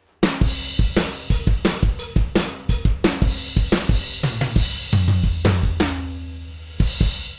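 Acoustic drum kit playing a steady groove of kick, snare and hi-hat with cymbals, with a fill down the toms about four and a half seconds in and the floor tom ringing low. It is heard through the mixing console's stereo bus with an SSL-style compressor and a limiter, and the playing stops abruptly near the end.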